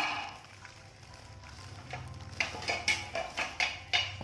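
Kitchenware being handled: one sharp knock, then from about two seconds in a run of light clicks and knocks, a few a second, over a low hum.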